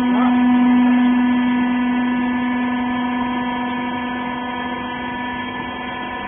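Steady machine hum: one low tone with overtones, holding level.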